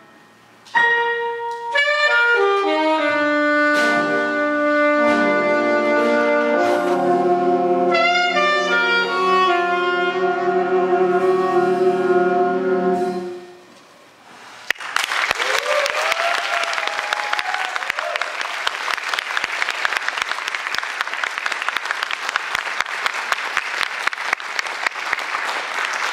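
High school jazz big band of saxophones, trumpets and trombones playing its closing bars, ending on a long held chord about halfway through. After a brief pause the audience breaks into applause with some cheering, and the clapping carries on to the end.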